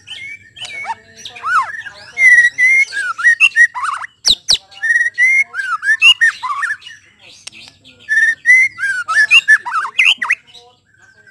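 Male white-rumped shama singing: quick phrases of loud fluty whistles and notes sliding up and down, broken by short pauses, with two sharp clicks a little over four seconds in.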